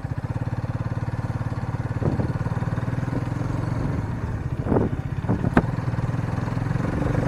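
Hero Karizma XMR 210's single-cylinder engine running at low road speed, with an even firing pulse. A few short knocks come about five seconds in.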